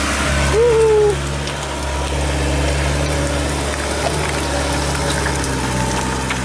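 A vehicle engine running at a steady idle, with a brief pitched tone that rises and then falls about half a second in.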